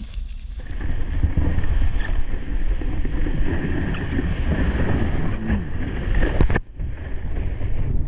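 Wind rushing over a GoPro action camera's microphone while snowboarding, mixed with the board sliding and scraping over packed snow. The noise briefly drops out about six and a half seconds in.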